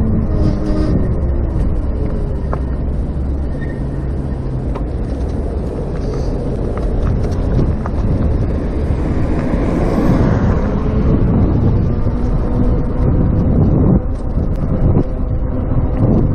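Heavy wind rumble on the microphone with road noise from a moving electric bike, swelling briefly about ten seconds in.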